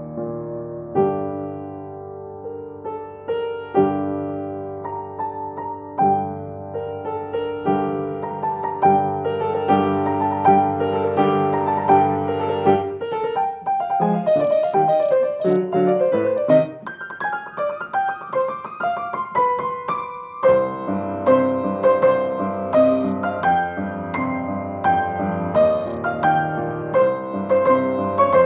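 Solo grand piano playing: full, sustained chords, giving way about halfway through to a quicker, lighter run of notes higher up, then full chords again in the last third.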